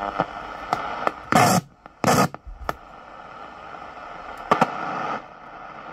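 Panasonic GX10 II portable radio hissing with static on the medium-wave band as its tuning knob is turned, with several loud crackling bursts of noise. It is a sign that the repaired band is picking up signal again.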